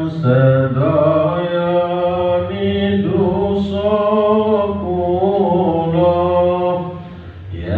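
A man's solo voice chanting a Javanese devotional syiir into a microphone, in long melodic lines with wavering held notes. He pauses briefly for breath near the end.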